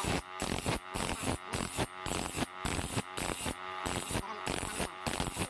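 Hand file being pushed across the teeth of a hand saw, sharpening it: rhythmic rasping strokes, about two a second.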